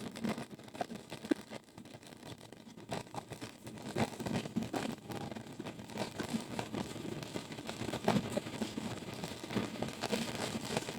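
Packaging being handled: irregular crinkling and rustling with scattered small clicks and crackles.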